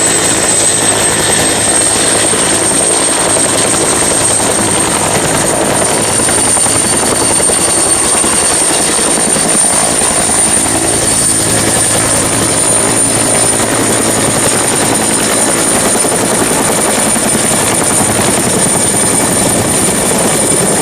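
Helicopter sound for a toy helicopter: a steady rotor-and-engine noise with a thin high whine over it, running without a break.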